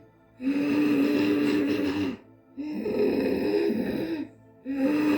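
A woman doing Ujjayi pranayama, breathing loudly through a narrowed throat. Three long breaths in and out, each about a second and a half with a short pause between, hissing with a steady low drone. The drone is pitched slightly differently on the in-breath and the out-breath.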